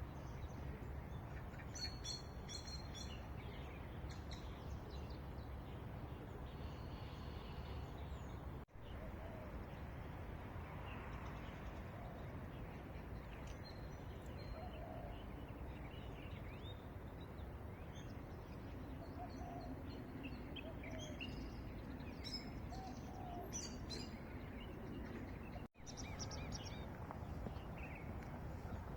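Several small birds chirping and calling in short scattered phrases over a steady low background hum of outdoor ambience. The sound cuts out for an instant twice.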